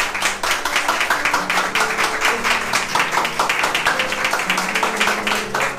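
A small group applauding, many hands clapping quickly and densely, with music playing underneath in long held notes.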